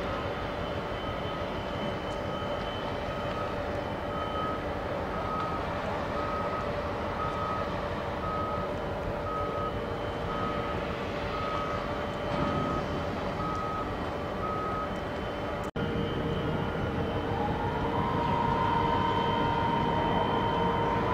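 Heavy machinery's reversing alarm beeping evenly, a bit more than once a second, over a steady engine rumble; the beeping stops about three-quarters of the way through. Near the end a steady machine whine rises, holds and falls away.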